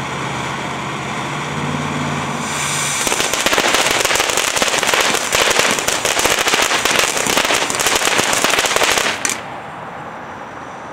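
Phantom Brew Ha Ha firework fountain spraying with a steady hiss. About two and a half seconds in it breaks into dense crackling that lasts about seven seconds and cuts off suddenly near the end, leaving a quieter hiss.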